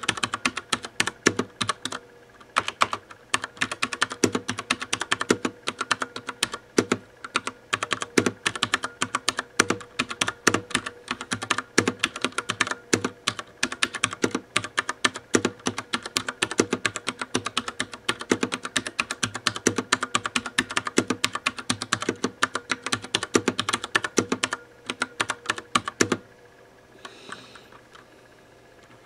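Rapid typing on a Das Keyboard Professional Silent mechanical keyboard with Cherry MX Brown switches: a dense run of key clicks and thocks. The typing stops a little before the end, leaving a faint, brief scratchy sound.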